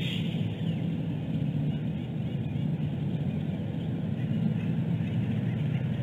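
Steady low rumble of wind on an outdoor nest camera's microphone, with faint high bird calls in the background.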